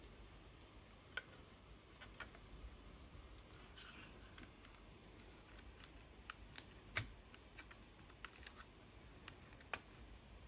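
Faint, scattered clicks and taps of a circuit board being handled and pressed down onto pin headers, the sharpest click about seven seconds in.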